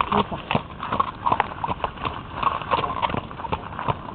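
Horse's hooves clip-clopping, several strikes a second in an uneven rhythm.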